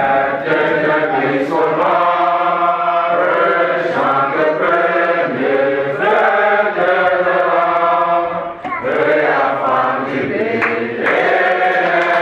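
A group of people singing together, held sung notes in a chant-like choral song.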